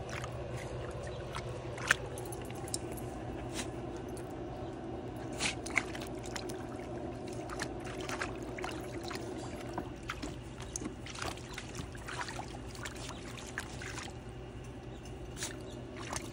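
Pharaoh Hound puppies splashing and stepping about in the shallow water of a plastic kiddie pool, a run of short, irregular splashes and trickles over a steady low hum.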